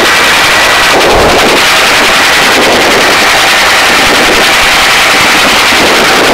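Helicopter hovering with its cabin door open, rotor and turbine noise loud and close, the rotor chop coming as a rapid, even pulsing over a rushing roar.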